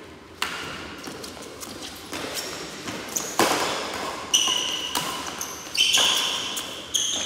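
Badminton rackets striking a shuttlecock back and forth in a rally: about six sharp smacks roughly a second to a second and a half apart, each echoing through a large hall.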